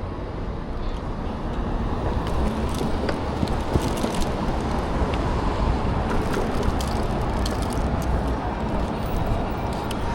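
Steady road-vehicle noise, a low rumble with scattered light clicks and rattles.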